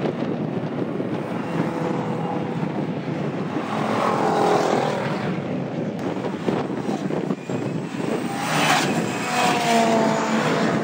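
Cars lapping a racing circuit, their engines revving and changing pitch as they pass, over a steady wash of engine and tyre noise. Passing engine notes stand out about four seconds in and again near the end.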